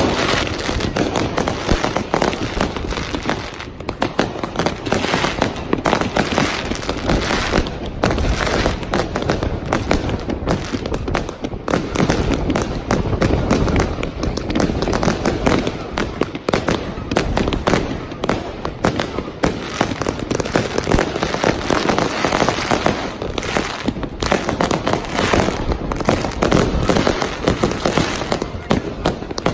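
Fireworks display: many aerial shells and rockets bursting and crackling one after another without a break.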